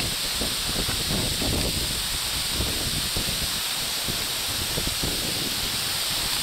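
Wind buffeting the microphone, an irregular low rumble under a steady hiss, with leaves and undergrowth rustling.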